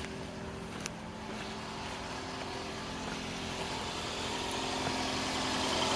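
Steady mechanical hum from the engine bay of a 2007 Toyota Camry Hybrid, growing louder toward the end, with a small click about a second in. It is the ABS actuator pump running on and on, constantly trying to pressurize, which the owner takes for a failing ABS module.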